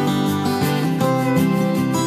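Background music with acoustic guitar.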